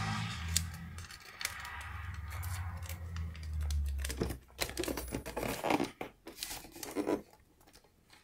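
Origami paper being handled and creased as a paper boot is shaped and pressed flat: rustling and crinkling, most of it a run of short, sharp crackles in the second half, dying away near the end.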